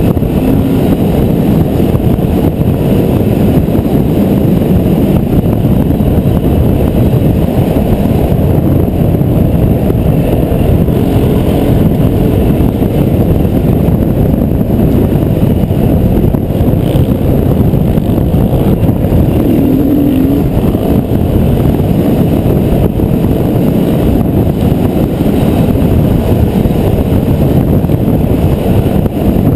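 Enduro dirt bike riding fast on a dirt track: the engine running under load mixed with wind rush over the microphone, a loud, steady din.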